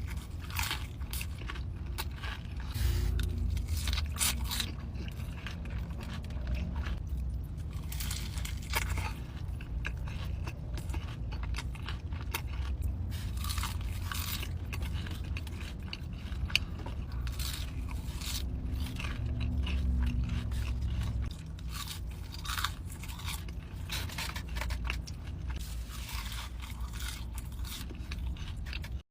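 Close-miked eating: a run of crunchy bites and chewing, with some scraping.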